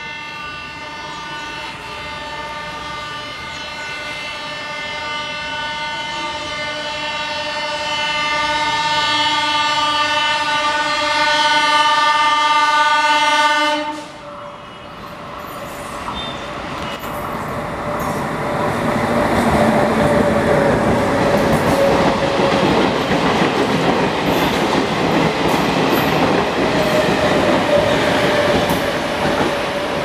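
Indian Railways diesel DEMU sounding its multi-tone horn in one long unbroken blast that grows louder as the train approaches, warning traffic at a level crossing left open. The horn cuts off suddenly about fourteen seconds in. Then comes the loud rumble and wheel clatter of the train running past at speed.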